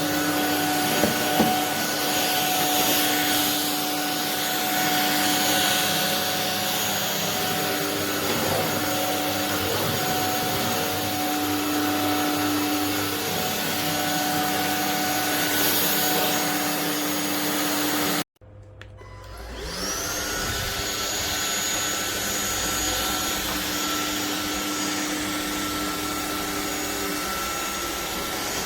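Anyson 550 W cordless stick vacuum running steadily with a high motor whine. About 18 seconds in, the sound cuts out abruptly, then the motor spins back up with a rising whine and runs on steadily.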